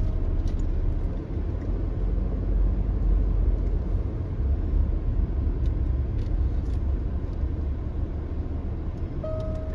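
Low steady rumble of a car's engine and road noise, heard from inside the cabin as it crawls slowly through a traffic jam.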